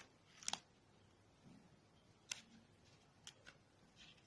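Faint, sparse clicks and a brief rustle of cardstock paper as the flaps of a handmade paper explosion box are handled; the loudest rustle is about half a second in, with single clicks about two and three seconds in.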